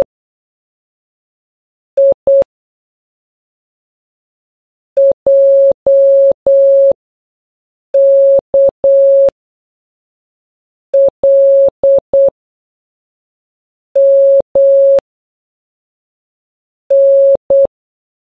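Morse code beeps: one steady mid-pitched tone keyed on and off in short dits and long dahs, one letter about every three seconds. The groups spell the letters I (··), J (·−−−), K (−·−), L (·−··), M (−−) and N (−·) in turn.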